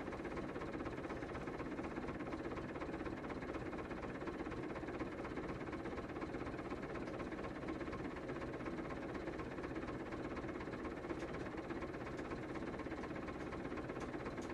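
Massey Ferguson 265 tractor's three-cylinder diesel engine idling steadily with an even hum.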